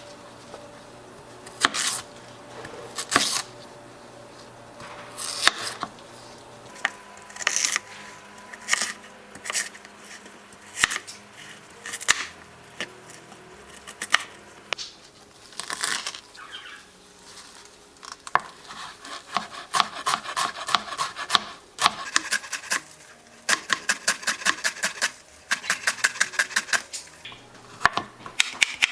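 Kitchen knife chopping on a wooden cutting board: scattered single cuts at first, then from about two-thirds in, fast runs of several strokes a second.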